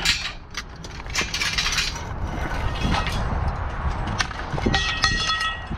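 Scrap metal pieces clanking and rattling as they are handled and loaded, with one piece ringing briefly near the end.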